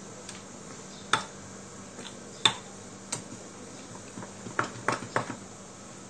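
A steel spoon clinking against a cut-glass bowl while stirring thick semolina (rava idli) batter: about six sharp, irregular clinks, the loudest about two and a half seconds in and a quick cluster near the end.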